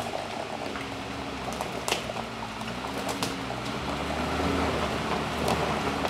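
Jeep Wrangler driving slowly over a forest trail, its engine running at low revs and growing louder as it approaches, with sharp cracks of sticks and debris under the tyres.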